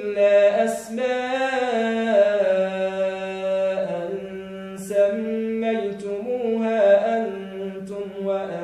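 A man reciting the Qur'an in Arabic in a chanted, melodic style, holding and gliding long drawn-out notes in one unbroken line.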